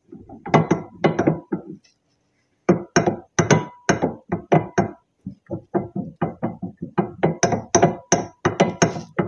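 Background music with a quick percussive beat: a short pause about two seconds in, then a fast run of struck notes.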